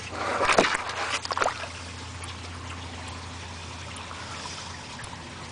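A turtle slipping off the pond's edge into the water, with a splash lasting about a second and a half. Then gentle water trickling over a steady low hum.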